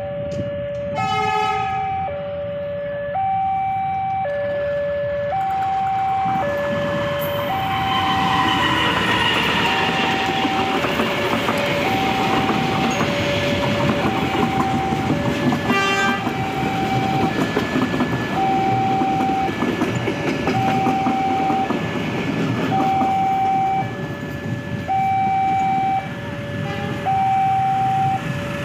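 A two-tone level-crossing warning alarm sounds throughout, alternating a high and a low note about once a second. A diesel-hauled train gives a short horn blast about a second in, then comes through from about 7 seconds in with loud engine and wheel noise, and sounds its horn briefly again midway.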